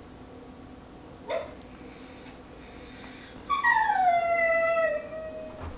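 A dog whining: a short click about a second in, then thin, very high-pitched whines, then a longer, louder whine that slides slowly down in pitch for about two seconds.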